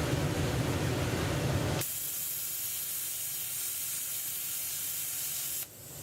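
Powermax45 XP air plasma torch gouging at 10 amperes, a steady rough rushing noise. About two seconds in it changes abruptly to a high, even hiss of air through the torch, which drops away just before the end.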